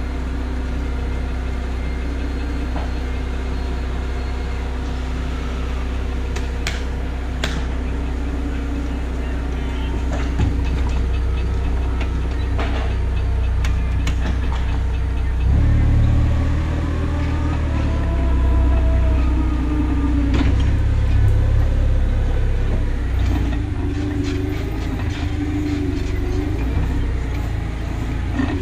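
A vehicle's engine running with a steady low rumble, which gets louder and rougher about halfway through, with faint wavering higher tones over it.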